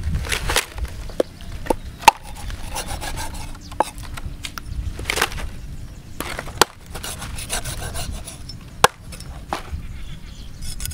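Cleaver working a stingray on a wooden chopping block: scraping strokes along the fish, with several sharp knocks of the blade against the wood, the loudest about two seconds in.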